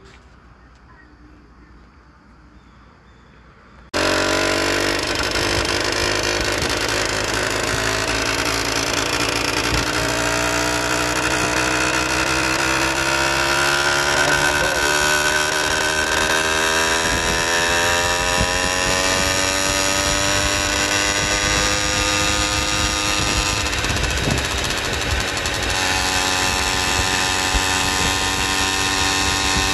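Faint at first, then suddenly a motorized bicycle's small gas engine running at speed. Its pitch rises as it accelerates, then holds steady at cruising speed.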